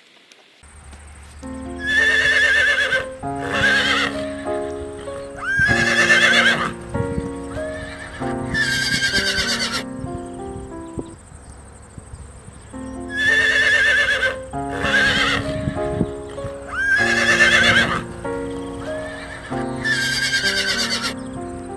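Horse neighing, about eight whinnies with a wavering, shaking pitch. The same run of calls repeats about halfway through.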